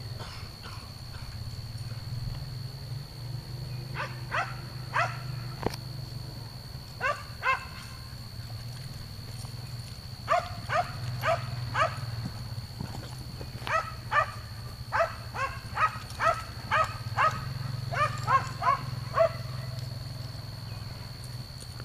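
A dog barking off and on, short barks in runs of two to a dozen, over a steady low hum.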